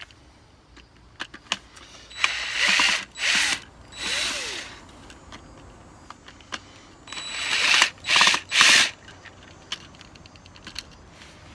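A screw-driving tool working screws out of a rusted outdoor GFCI receptacle and its box, in short ratcheting bursts: three about two seconds in, then three more about seven seconds in.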